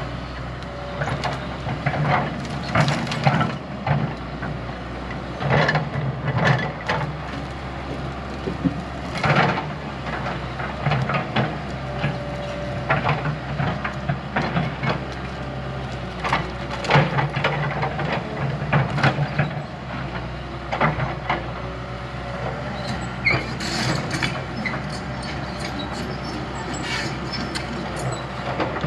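Diesel engine of a heavy earthmoving machine running steadily, with repeated clanks and knocks throughout.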